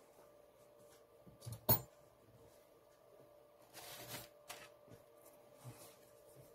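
Handling noise from a power bank's circuit board and plastic frame being turned over in the hand: one sharp click a little under two seconds in, then a brief rustle and a few light taps.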